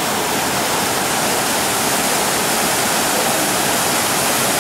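Floodwater rushing and churning through a wide channel: a steady, loud rush of water.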